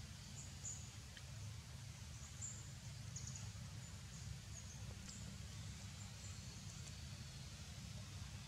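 Faint outdoor background: a steady low rumble with short, high chirps every second or so.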